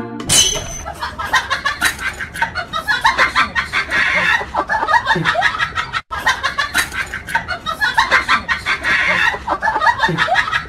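Rapid, loud clucking calls like a hen's, many to the second, that stop for an instant about six seconds in and then go on.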